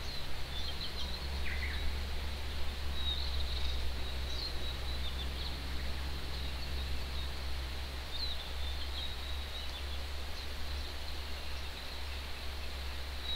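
Steady rush of a distant mountain stream, with short high bird chirps and calls scattered over it and a thin, steady high-pitched tone that runs beneath the chirps.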